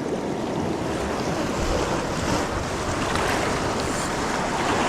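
Ocean surf washing on the shoreline, with wind buffeting the microphone: a steady rushing noise that grows heavier in the low end about a second and a half in.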